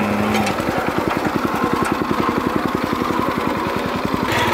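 The small engine of a Hanguk GSM-900G walk-behind cultivator runs with a rapid, even firing beat while its rotary tines till grassy soil. The cultivator is turning slowly with its rear support stand lifted. Near the end the engine note changes abruptly to a higher, steadier sound.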